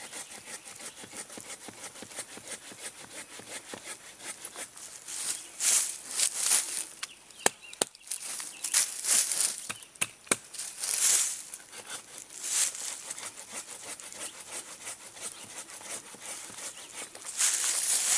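Gerber Exchange-A-Blade hand saw sawing into a live sweet gum trunk in uneven spells of strokes with pauses between, and a few sharp clicks around the middle.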